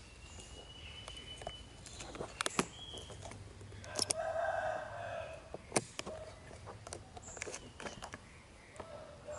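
Scattered sharp clicks and knocks of a baby monkey's hands and feet on the plastic lid of a milk-formula tin as it tries to open it. A short animal call is heard about four seconds in.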